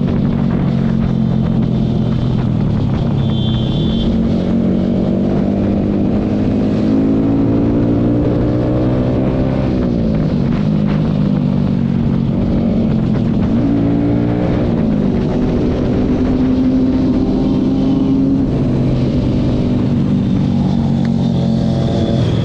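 Yamaha sport motorcycle's engine heard from the rider's seat while cruising, its pitch climbing slowly under throttle and dropping sharply at gear changes about ten and fifteen seconds in, over steady wind and road noise.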